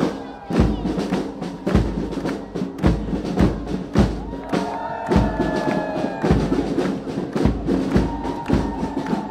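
Band music played outdoors: a bass drum beating steadily, a little under two beats a second, under held melodic notes.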